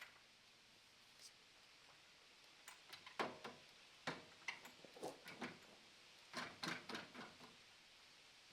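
Near silence broken by faint, scattered small clicks and light knocks, in two loose clusters a few seconds apart.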